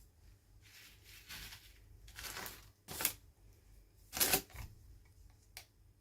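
Toy packaging being handled and opened by hand: a few short rustles and crinkles with sharp snaps, the loudest a little past four seconds in.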